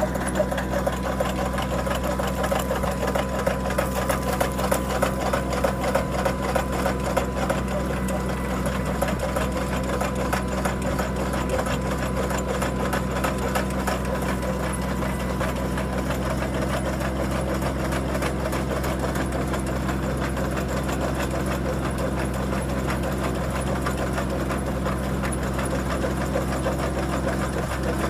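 Mini-tractor engine running steadily, powering a hydraulic motor that turns a 200 mm earth auger boring into the soil. The sound is a little uneven for the first several seconds, then settles into a steady run.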